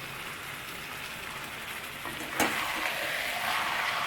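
Chicken pieces sizzling in hot oil in a pan, fried without any water. About two and a half seconds in there is a sharp knock, and the sizzle grows louder.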